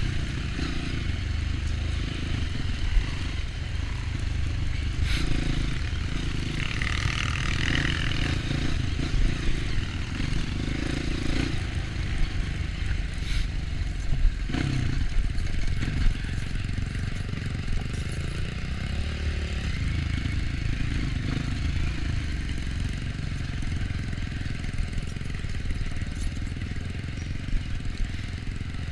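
Off-road motorcycle engine running steadily, with the throttle shifting, over a trail, with occasional knocks and clatter from the bike going over rough ground.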